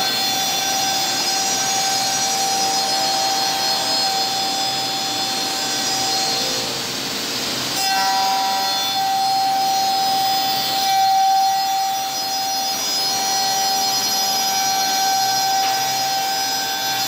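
Double-head CNC spindle shaper running: its high-speed cutter spindles give a steady high whine over the noise of the cutters shaping the curved edge of a wooden chair part.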